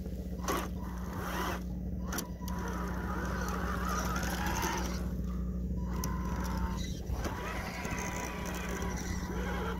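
Radio-controlled Tamiya King Hauler truck on tracks crawling through soft dirt, its drivetrain running with a steady hum and a few sharp clicks in the first couple of seconds.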